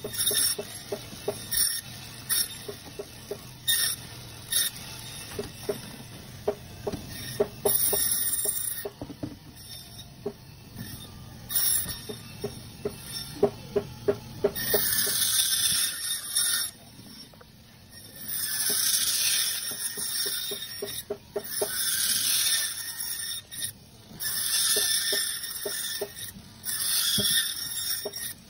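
Band saw cutting through frozen fish: a harsh high-pitched hiss that lasts a few seconds for each cut, repeating several times in the second half. Before that come many sharp clicks and knocks of frozen pieces being handled on the steel table.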